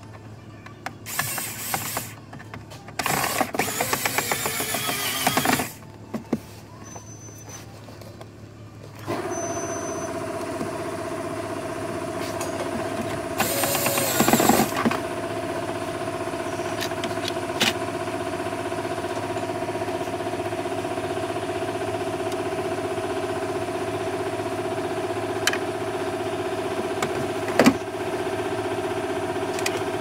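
A few loud, noisy bursts of handling, then about nine seconds in a steady motor hum starts abruptly and runs on evenly, with a short noisy burst near fourteen seconds and a few sharp clicks.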